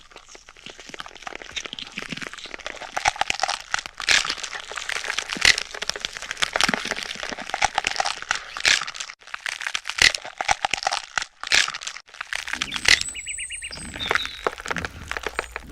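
Close, irregular crackling and crunching of a blade cutting and scraping away dead, necrotic tissue from a cow's wound.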